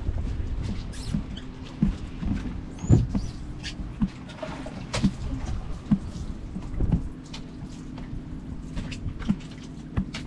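Irregular light knocks, taps and clicks, about a dozen spread unevenly over ten seconds, of someone moving about and handling things on a fibreglass boat.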